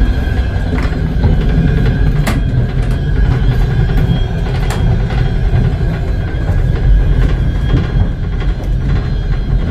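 Steady low rumble of a moving passenger train carriage heard from inside the carriage, with a few sharp clicks and knocks, the loudest a little over two seconds in.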